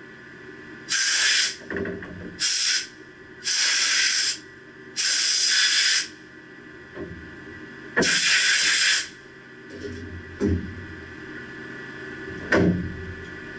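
Compressed-air blow gun fired in five short hissing bursts, blowing chips and coolant off a machine vise. It is followed by a couple of light metal clinks near the end.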